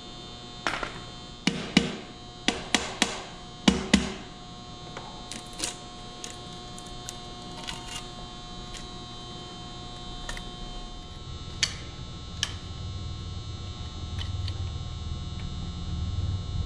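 Metal clinks and knocks of hand tools and parts during the teardown of a Ford Model A four-cylinder engine block: a quick run of sharp knocks in the first few seconds, then scattered single clicks, over a steady electrical hum. A low rumble builds in the last few seconds.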